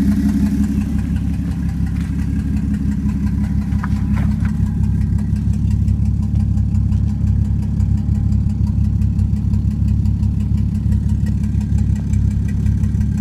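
Toyota 1JZ straight-six engine idling steadily with a rough, uneven beat; the owner suspects a misfire or knock.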